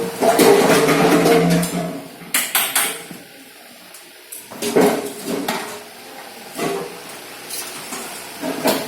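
Metal clanking and clattering from factory work: a loud rattling stretch at first, then a handful of separate sharp metallic knocks.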